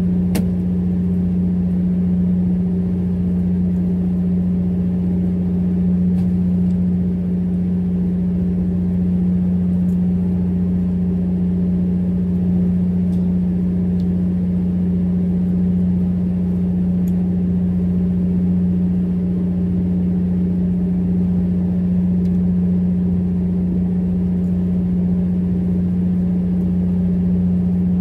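A fishing boat's engine running steadily: a loud, even, low hum that neither rises nor falls, with a few faint ticks on top.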